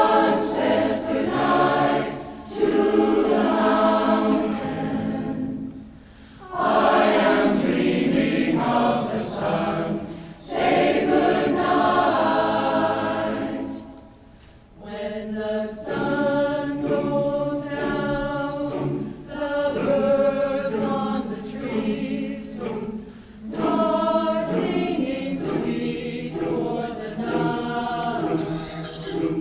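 Community choir singing a cappella in phrases, with short breaks between them; the later phrases are more clipped and rhythmic.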